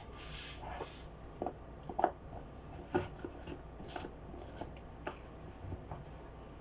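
Scattered light clicks and knocks of kitchen items being handled, about one or two a second, the sharpest two near the middle.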